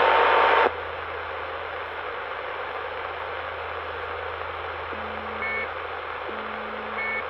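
CB radio receiver hissing with static on an open channel after a strong transmission carrying a steady tone cuts off under a second in. Two short beeps come through, about five seconds in and again near the end, over a steady low hum.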